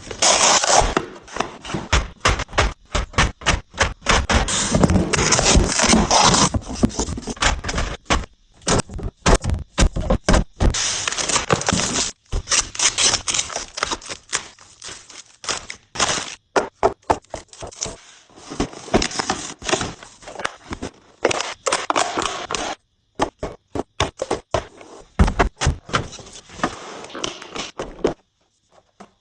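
Kitchen items and packaging being handled and set down during restocking: a quick run of knocks, thunks and clacks, with stretches of scraping and rustling.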